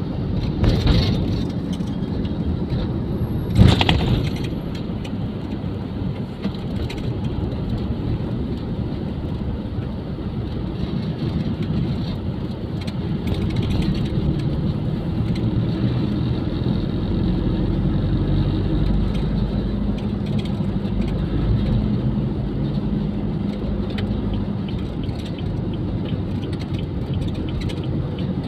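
Steady road and engine noise of a car driving through city traffic, heard from the moving vehicle. A single sharp knock stands out about three and a half seconds in.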